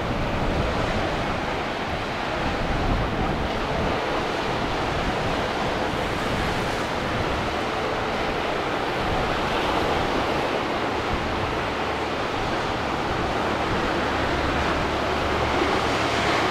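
Ocean surf and wind buffeting the microphone, an even rushing noise with no breaks. A faint steady engine drone sits underneath.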